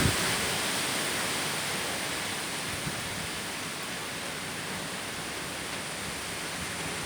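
Steady rushing hiss of a wind storm, easing slightly over the first few seconds.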